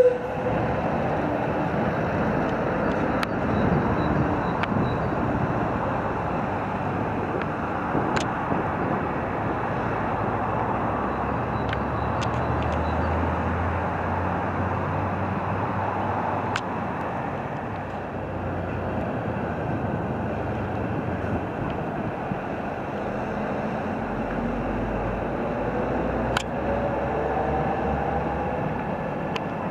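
Road traffic passing: lorry and van engines with tyre noise, steady throughout. Near the end an engine rises in pitch as a vehicle speeds up, and a few faint sharp clicks stand out.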